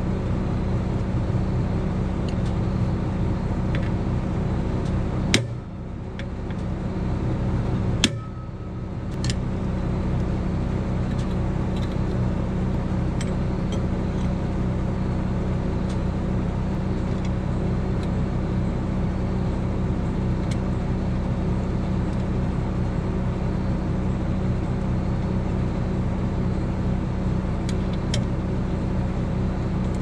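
Case IH 8230 combine's diesel engine running steadily at a standstill. The drone is broken by two sharp clicks about three seconds apart, and the sound drops briefly after each.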